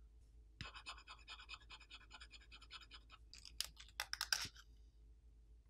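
Faint scratching and small clicks of a disassembled smartphone's midframe being handled on a table, with a few sharper clicks about four seconds in.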